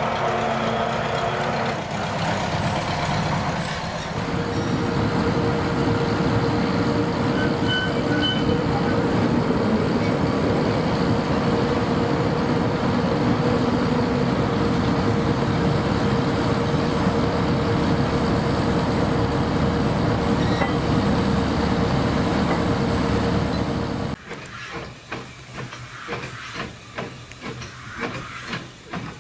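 A train running with a loud, steady noise and a held hum. About twenty-four seconds in it cuts off suddenly, leaving quieter, scattered knocks and clatter.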